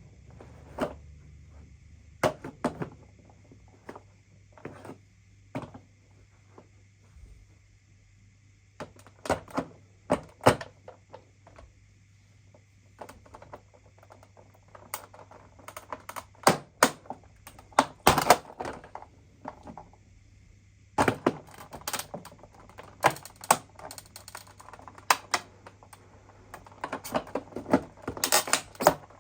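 Hard plastic and metal parts of a broken coffee machine clicking, tapping and knocking as they are handled and taken apart. The sounds are irregular, single or in quick clusters with pauses between, and are busiest near the end. A faint steady hum runs underneath.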